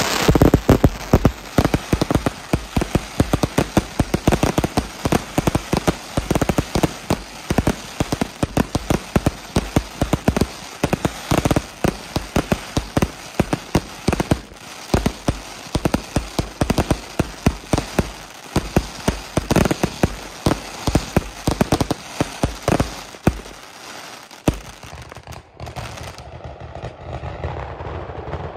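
Sicilian ground fireworks battery (batteria) going off: a dense, rapid run of firecracker bangs and crackling, many a second, with irregular louder reports. About 25 s in the bangs stop, leaving a softer steady noise.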